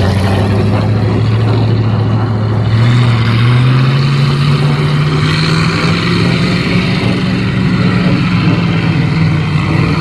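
Car engine running loud, its revs climbing about three seconds in and then holding high and steady.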